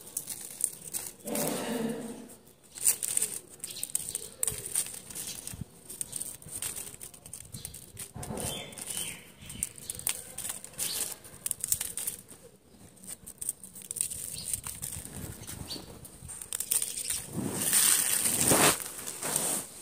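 Biscuits being crumbled by hand over a crinkling plastic wrapper, with pieces dropping onto floor tiles: irregular crackles and rustles, louder about a second in, around the middle and near the end.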